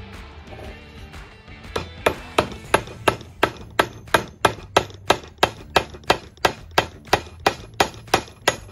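Hammer striking a metal letter stamp into a silver bar set on a brass block, about three even taps a second, starting a little under two seconds in.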